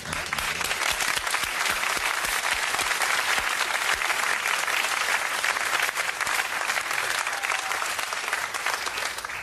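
Studio audience applauding for a correct guess, a dense even clapping that eases off near the end.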